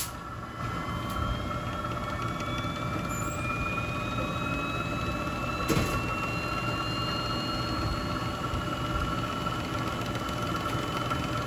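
Treadmill DC drive motor, belted to a flywheel, accelerating toward top speed: a steady motor hum with a whine that rises slowly in pitch as it speeds up. A single click about halfway through.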